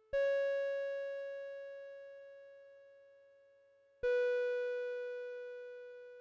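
UNI-PEX MZ-101A music chime sounding two slow notes, each struck and then ringing down over about four seconds: a higher note at the start and a slightly lower one about four seconds in. It is an old chime unit made before melody ICs, heard as a clean signal taken straight from its audio output.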